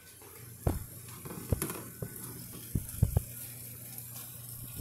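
Handling noise as a phone camera is moved and repositioned: a few short knocks and bumps, over a faint steady low hum.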